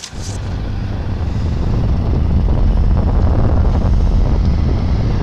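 Deep, loud rumble of a film sound effect for the asteroid bearing down on Earth. It swells over the first couple of seconds and then holds steady.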